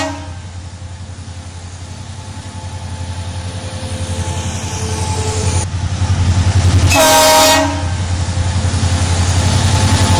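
Twin WDG4 diesel locomotives' engines throbbing, growing steadily louder as the freight train approaches. About seven seconds in, one short blast on the locomotive horn, with the end of an earlier blast cutting off right at the start.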